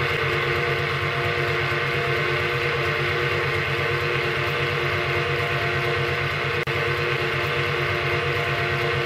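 Freshly rebuilt Diamond donkey pump (a belt-driven piston water pump) running on its Super Golden electric motor: a steady machine hum with a fast pulsing underneath and no abnormal knocking. The sound drops out for an instant about two-thirds through.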